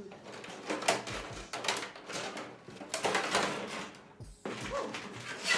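Rigid black plastic box insert and cardboard packaging being handled and lifted, giving irregular scraping and rustling.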